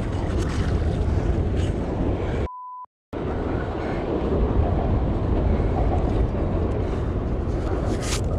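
Wind rumbling on the microphone over water splashing as a hooked barramundi thrashes at the surface beside the boat. About two and a half seconds in, everything cuts out for a short steady censor bleep and a moment of silence.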